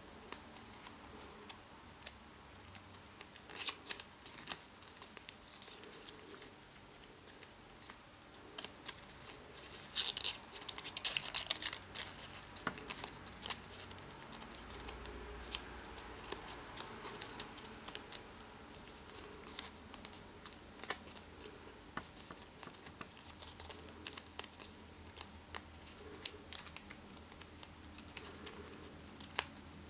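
A sheet of white paper being folded and creased by hand: irregular crinkles and sharp crackles as the paper is bent and pressed, busiest and loudest about ten to thirteen seconds in.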